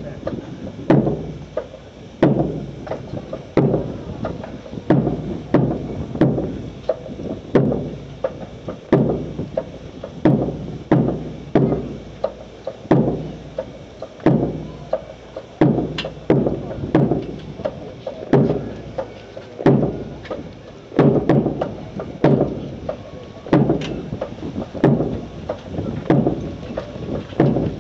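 Drill squad's boots stamping and marching in unison on a concrete parade square, a steady rhythm of heavy thuds with sharp clicks from rifles being handled in drill.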